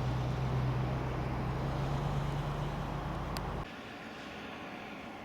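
Steady rushing of a flooded beck under a low, steady hum; the hum and much of the rush cut off suddenly about three and a half seconds in, leaving a quieter rush.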